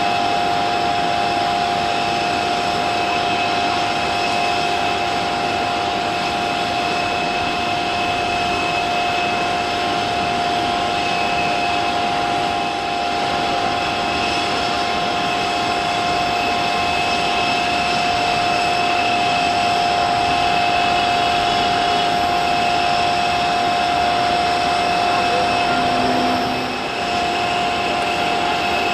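Aircraft jet engines running with a steady whine at an unchanging pitch over a hiss, dipping briefly a few seconds before the end.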